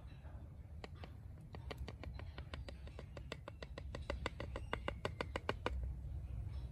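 A quick run of sharp taps, about four a second, starting about a second in and stopping near the end, over a low background rumble.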